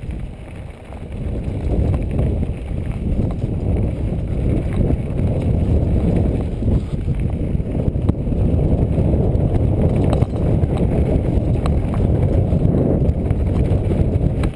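Trek Rumblefish Elite full-suspension mountain bike descending a dirt singletrack at speed, picked up by a camera mounted on the bike: a steady low rumble of tyres on the trail and wind on the microphone, with scattered clicks and knocks over bumps. The rumble dips briefly about a second in.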